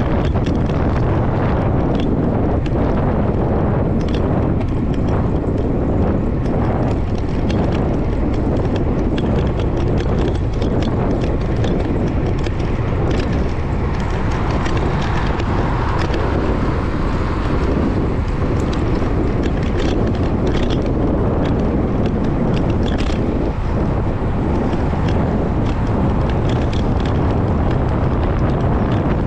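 Wind rushing over the microphone while riding a bicycle, a steady heavy rumble with scattered small clicks and rattles.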